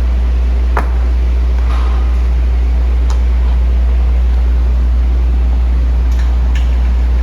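Steady low rumble with a few scattered sharp clicks.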